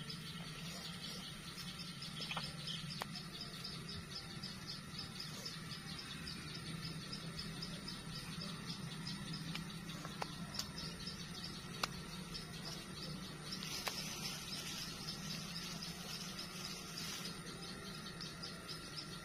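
Insects chirping in a rapid, even pulse, over a low steady hum, with a few sharp clicks.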